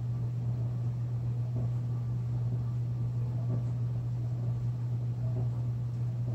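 A steady low hum that does not change, with faint soft sounds every couple of seconds above it.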